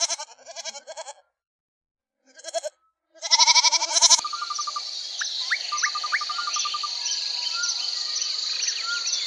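Several wavering bleats with short silences between them. About four seconds in, a sudden change to a steady high drone with regular chirps about twice a second and scattered short whistled notes, like a night chorus of insects and birds.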